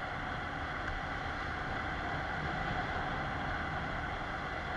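Steady rush of wind and road noise from a two-wheeler riding along a wet road, unchanging throughout.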